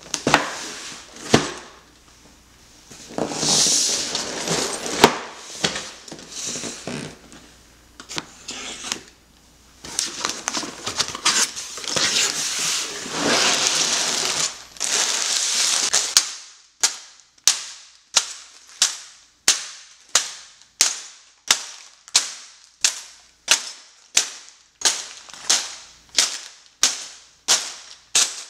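Sealed plastic bags of Lego pieces and a cardboard box being handled, crinkling and rustling with sharp crackles, for a little over half the time. Then a steady series of sharp clicks, about two a second, each with a short fading tail.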